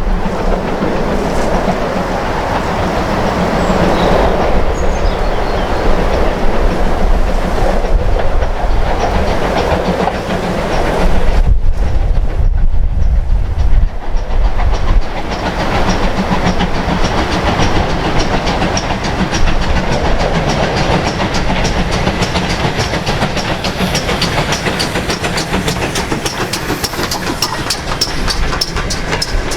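Steam-hauled train passing, its wheels clattering steadily over the rail joints, with a short break about eleven seconds in.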